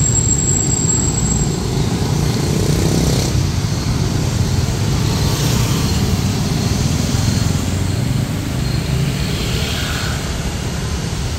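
Dense motor scooter and motorbike traffic running and passing close by, a steady low rumble of small engines.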